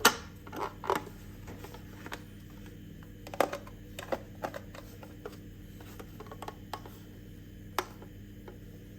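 Toy pieces being handled, giving scattered sharp clicks and knocks: one loud knock at the start, a few more just before a second in, around three and a half and four seconds, and one near the end.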